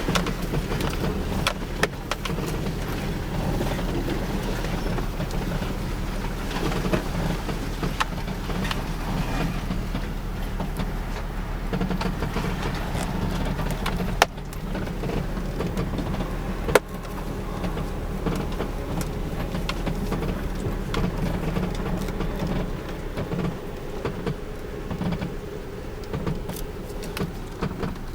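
Steady road and running noise heard inside the cabin of a 2009 Subaru Forester, with scattered short clicks and creaks from the interior. Two sharper clicks stand out about 14 and 17 seconds in.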